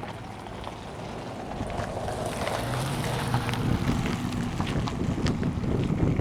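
A motor engine drones steadily and grows louder from about two seconds in, with wind buffeting the microphone.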